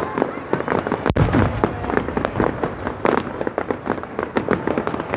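Fireworks display: dense, rapid crackling and popping of bursting shells, with one loud sharp bang about a second in followed by a low rumble.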